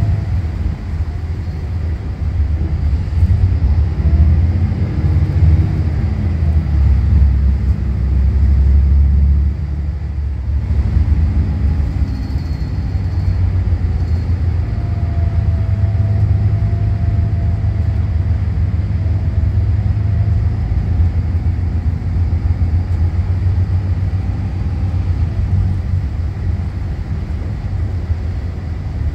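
Volvo B8RLE bus's six-cylinder diesel engine and automatic drivetrain heard from inside the cabin at the rear: a steady low rumble while the bus drives. The engine note climbs and falls back around five seconds in, and the sound eases briefly about ten seconds in.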